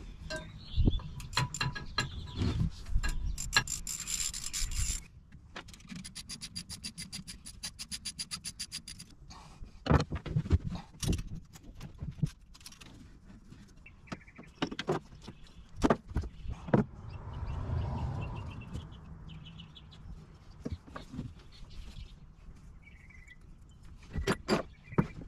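Knocks, clicks and rubbing of hand tools and parts while a boat's fuel control center is unbolted and pulled out. About five seconds in there is a run of rapid, even clicks lasting about four seconds.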